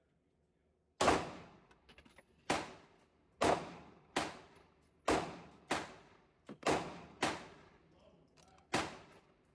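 About nine gunshots starting about a second in, fired at an uneven pace every half second to a second and a half, each followed by a ringing echo tail.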